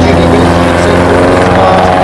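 Helicopter running with a steady drone.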